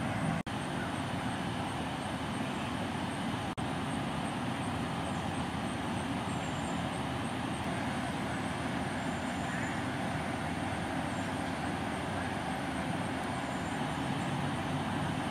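Steady roadside background noise with a low vehicle rumble, broken by two very brief dropouts, one just under half a second in and one about three and a half seconds in.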